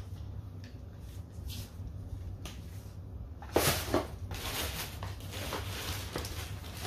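Packaging being handled: faint light clicks, then two sharp knocks about halfway through, followed by steady rustling of packaging, likely a plastic mailer bag.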